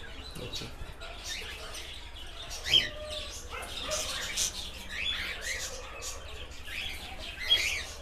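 Cockatiels chirping in a cage, short rising-and-falling calls repeated every second or so, with wings flapping.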